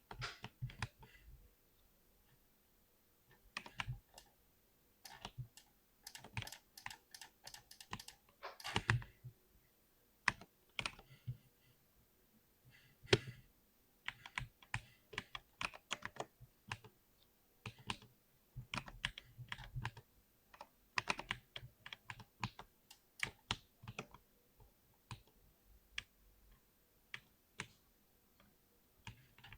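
Typing on a compact 60% computer keyboard: quick, irregular runs of keystrokes with short pauses between them, and a dense cluster of keys about a third of the way in.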